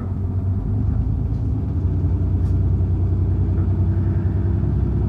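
City bus engine heard from inside the cabin, a steady low rumble that grows louder over the first second as the bus moves off, then holds.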